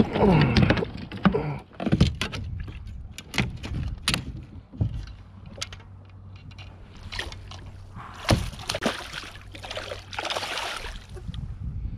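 Knocks and clatter of gear and hands against a fishing kayak, with water splashing twice in the second half.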